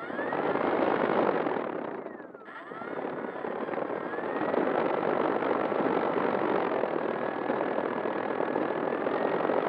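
Electric motor and propeller of an FMS Ranger RC plane running, heard from the camera on board as a loud rushing whine. About two seconds in the throttle eases off, the pitch falling, then it comes back up and holds steady.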